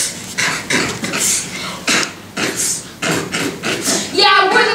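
Short breathy vocal bursts, about two a second, with no clear words; about four seconds in, a voice starts singing a held tune.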